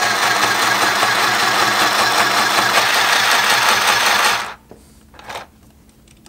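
An $8 mini sewing machine from Temu running steadily, stitching through two layers of 1000-denier Cordura with its stock thread. It stops suddenly about four and a half seconds in, and a short handling noise follows about a second later.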